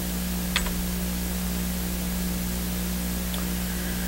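Steady microphone hiss with a low electrical hum, the recording's background noise between spoken lines. One short click about half a second in.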